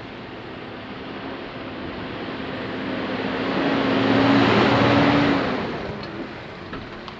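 A tractor-trailer truck passing close by. Its engine and tyre noise build up, peak about four seconds in, then fade away.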